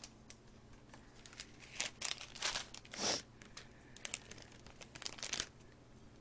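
A small plastic food sachet being crinkled in the fingers and torn open: a run of irregular crackles and short rustling bursts, mostly from about two seconds in to five and a half, the biggest just after three seconds.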